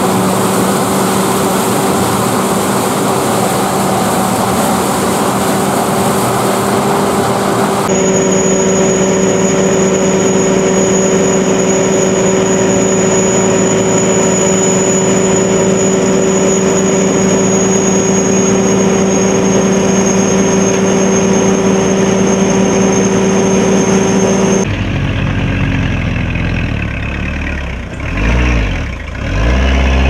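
Corn combine harvester engine and machinery running steadily at working speed, with a high whine through the middle part while the auger unloads grain. Near the end the sound turns into a lower, uneven rumble.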